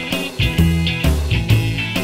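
Rock music with guitar, bass and drums on a steady beat.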